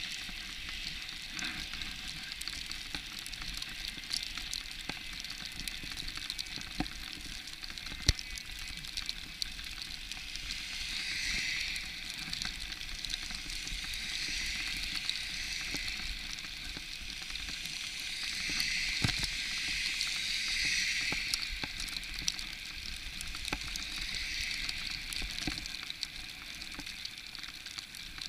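Steady hiss that swells and fades several times, with a single sharp click about eight seconds in.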